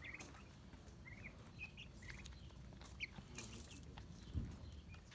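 Young white broiler chickens peeping in short, high chirps, several scattered through the time, with a few sharp clicks as they peck at their dish. A low thump comes about four seconds in, over a steady low rumble.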